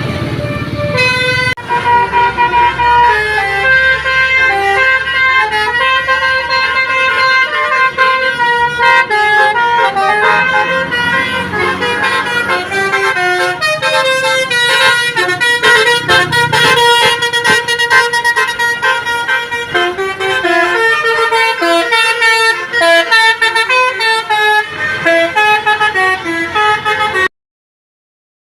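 Indonesian bus 'basuri' telolet horn, a multi-tone air horn, playing a melody of quickly changing notes, then cutting off abruptly near the end.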